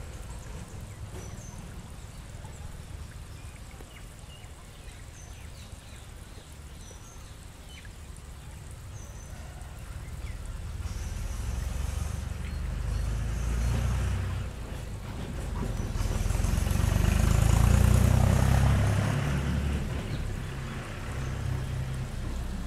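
Outdoor low rumble that swells over several seconds to its loudest about three quarters of the way through, then eases, with a hiss rising along with it. A few faint short high chirps come in the first half.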